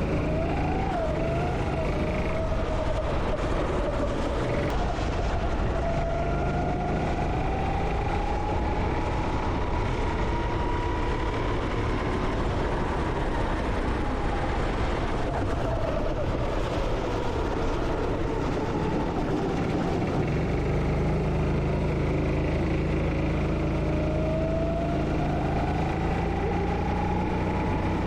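Go-kart engine heard onboard through a lap, its pitch climbing slowly as the kart accelerates, dropping in the middle as it slows, then climbing again near the end, over a steady wash of noise.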